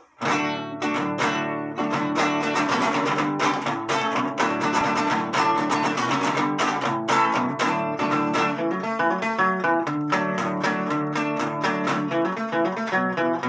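Nylon-string classical guitar strummed in a steady rhythm, chord after chord, starting just after the opening moment.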